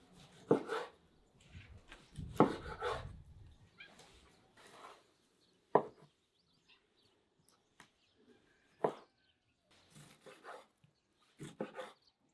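A cleaver chopping beef heart into chunks on a wooden cutting board: a handful of sharp chops a few seconds apart.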